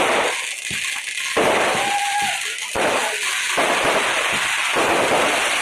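Aerial fireworks going off: rockets and bursting shells giving dense, rapid crackling that eases briefly a couple of times.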